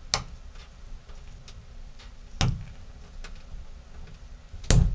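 A few separate clicks and knocks of the shower faucet's parts and tools being handled as the lock collar is fitted back on. There is one at the start, a stronger one about halfway, and the loudest, a heavier knock, near the end.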